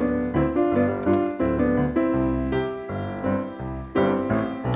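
Background music: a silent-film style solo piano tune, notes played in quick succession.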